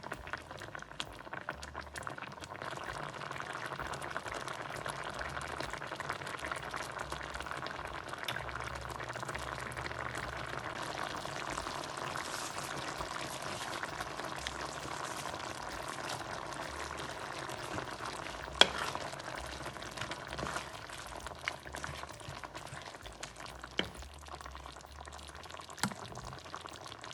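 Chicken Panang curry in coconut milk simmering in the pan, bubbling and popping steadily, with a sharp click about two-thirds of the way through.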